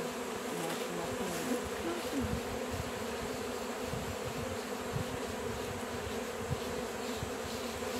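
Honey bees buzzing over an open, disturbed hive: a steady, dense hum of many bees in flight.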